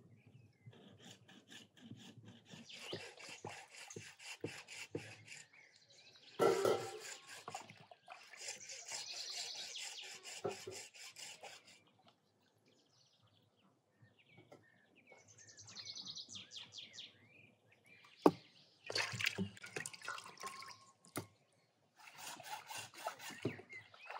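Hacksaw rasping through meat bone in quick back-and-forth strokes, in several spells, with a couple of sharp knocks. Splashing and dripping come from raw meat being washed by hand in a bowl of water.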